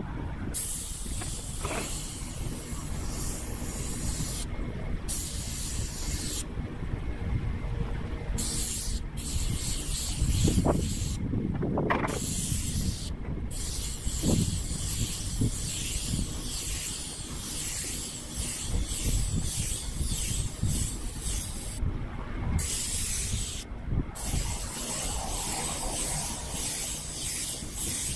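Airless paint sprayer gun hissing as it sprays primer onto corrugated steel roofing. The hiss starts and stops again and again as the trigger is pulled and released, with gaps of up to about two seconds. A low rumble of wind on the microphone runs underneath.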